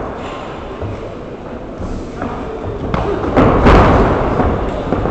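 Thuds of kicks and punches landing in a sanda kickboxing bout. A few sharp hits come together about three to four seconds in.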